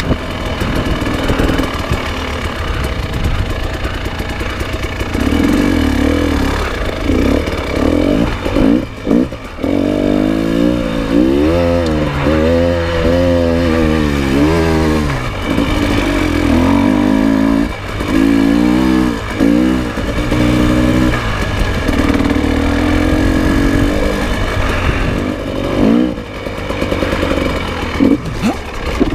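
A 300 cc dirt bike's engine being ridden on a rough trail, its revs rising and falling over and over as the throttle is worked.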